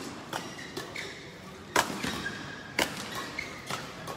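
Badminton rackets striking a shuttlecock in a fast doubles rally: sharp hits roughly once a second, the loudest just under two seconds in and near three seconds, each ringing briefly in the large hall.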